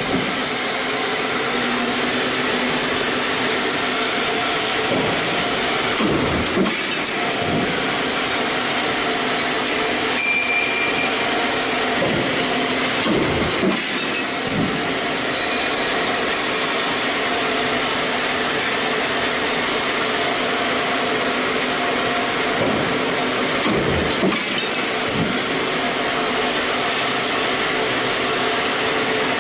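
Stamping press running a progressive deep-drawing die, with a steady machine hum and a few scattered knocks from the press strokes.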